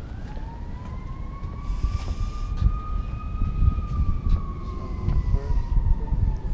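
An emergency-vehicle siren wailing: its pitch rises slowly through the first few seconds, holds, then falls away towards the end. Under it runs a low rumble of wind on the microphone.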